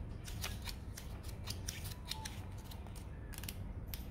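Pages of a small paper user manual being flipped by hand: a run of quick, irregular paper flicks and rustles, a few a second.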